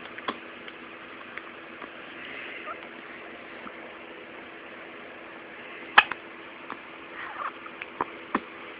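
Newborn baby hiccuping: short, sudden hics at irregular gaps, the loudest about six seconds in, with a few small squeaks and grunts near the end.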